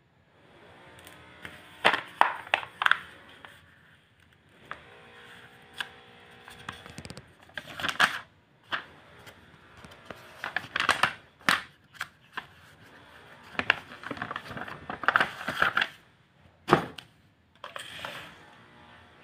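Handling noise as the drill's parts and its paper manual are unpacked: paper rustling, with irregular sharp clicks and knocks of plastic and metal parts being picked up and set down.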